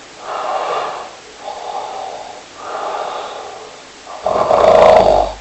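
Loud snoring: four long breaths, each about a second, the loudest coming about four seconds in.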